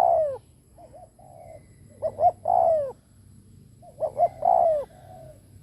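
Spotted dove decoy bird giving its bowing 'gù' coo, the call used to provoke wild doves: phrases about every two seconds, each a few quick short notes followed by a longer falling coo.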